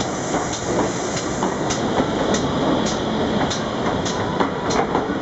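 A GWR Modified Hall steam locomotive and its coaches rolling slowly past, with a sharp regular beat about every half second or more.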